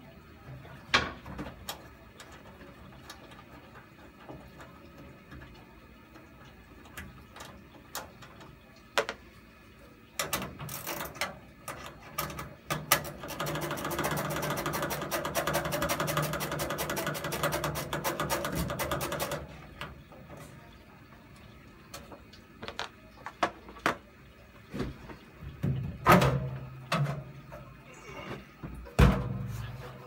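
Sheet-metal front casing of a Glow-worm Ultimate 120ff boiler being unfastened and lifted off by hand: scattered clicks and knocks, then several seconds of fast rattling and scraping in the middle, and two louder knocks near the end.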